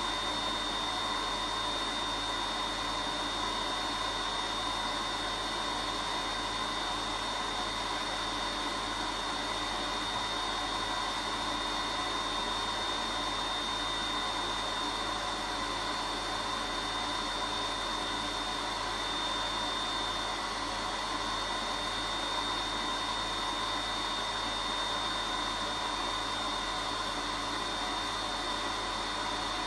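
Vacuum cleaner running steadily: a continuous rush of air with a high, unchanging motor whine.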